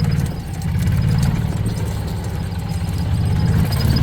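A vehicle's engine running in gear at low speed, a low rhythmic drone that grows a little louder near the end.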